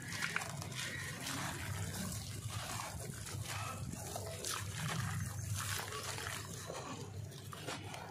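Dry sand-cement chunk dipped into a bowl of water, the water fizzing and crackling as it soaks into the chunk, while loose powder streams off into the water.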